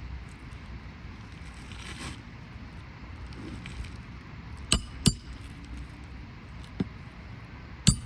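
Nails being driven into an asphalt roof shingle: four sharp metallic strikes, a close pair just past halfway, one more near the seventh second and one at the very end, over a steady low rumble.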